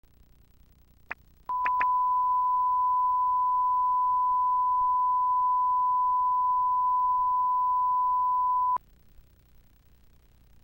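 Reference tone played with SMPTE colour bars at the head of a videotape: one steady, unwavering 1 kHz beep that starts with a few clicks about a second and a half in and cuts off suddenly about seven seconds later, leaving faint tape hiss.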